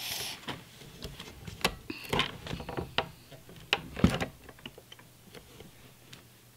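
Irregular small plastic clicks and taps from a Qixels 3D cube maker being handled: its hinged lid and frame set down and moved, with a louder knock about four seconds in.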